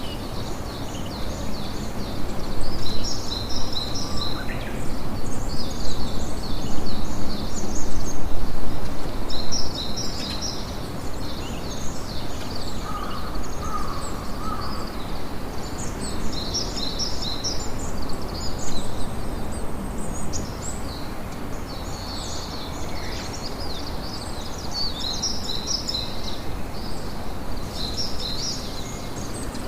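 Steady sea-and-wind noise with small birds chirping in quick, high-pitched clusters every few seconds; the background swells louder in the first third.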